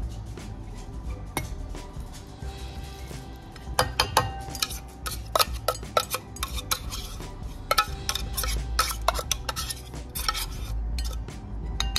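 Opened metal tuna can knocked and scraped against a bowl as the tuna is emptied out: a quick run of sharp clinks and knocks, some ringing briefly, starting about four seconds in.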